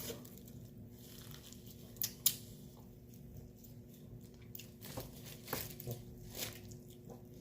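Close-up eating sounds of someone chewing and tearing meat off braised pork back ribs, with small wet clicks and crackles and two sharp clicks about two seconds in.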